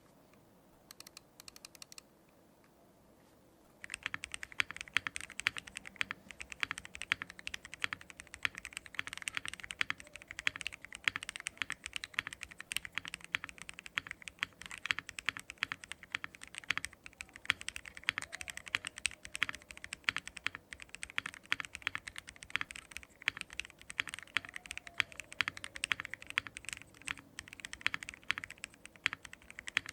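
Custom mechanical keyboard typing with lubed Everglide Aqua King linear switches, DSA-profile keycaps and no case foam. A few keystrokes about a second in, then steady fast typing from about four seconds in.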